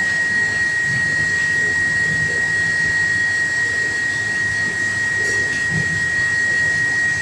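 Background noise of the lecture recording: a steady high-pitched whine over an even hiss, with faint low sounds now and then.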